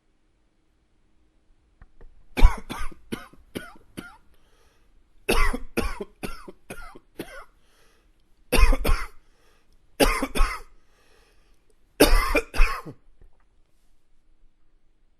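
A man coughing in five bouts a couple of seconds apart. The first two bouts are runs of several quick coughs, and the last three are shorter bursts of one or two coughs.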